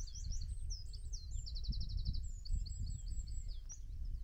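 Several songbirds singing in overlapping phrases, with a fast run of repeated high notes about halfway through, over a low, gusting rumble of wind noise.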